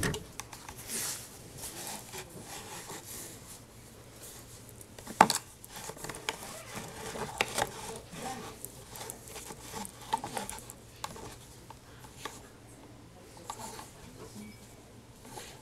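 Cotton fabric rustling as gloved hands handle a large doll and move its arms, with scattered light clicks and one sharp knock about five seconds in.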